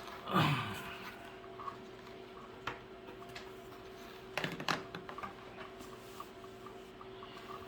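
Plastic watering-cup parts being handled and pressed into a plastic bucket: a short squeak falling in pitch just under a second in, then scattered clicks and a brief cluster of knocks about four and a half seconds in, over a steady low hum.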